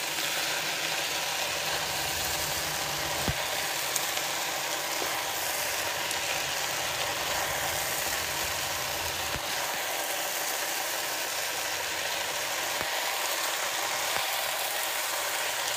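Stir-fried rice vermicelli and vegetables sizzling steadily in an oiled frying pan over high heat as they are tossed with chopsticks, with a few light clicks of the chopsticks on the pan.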